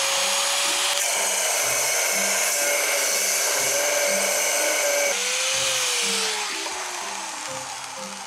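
Angle grinder with an abrasive cutting wheel, running at a steady whine and cutting through a bicycle front fork tube, with a dense hiss of the cut for about four seconds. Near the end the motor is switched off and winds down, its pitch falling.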